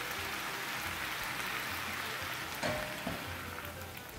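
Maxixe slices, tomato and pepper sizzling in a frying pan with a steady crackle. About two and a half seconds in, a cup of water is poured in with a splash, and the sizzle dies down after it.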